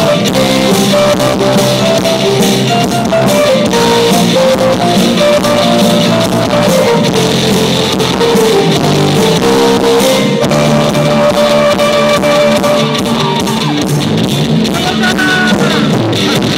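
Live pop band playing on stage, with guitar and drum kit, loud and continuous, heard through a phone's microphone.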